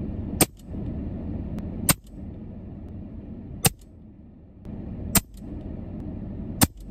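Five sharp shots from an EdGun Leshiy 2 PCP air rifle, fired about one and a half seconds apart, over a steady low rumble.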